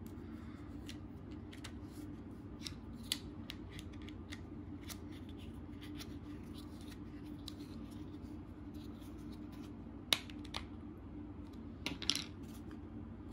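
Plastic screws being turned into a plastic take-apart toy dinosaur with a plastic screwdriver: a run of light, irregular clicks and ticks, with a few louder clacks about ten and twelve seconds in.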